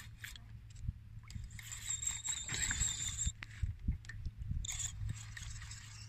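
Fishing reel being wound in two spells of a couple of seconds each, line coming in as a ray is brought up to the surface.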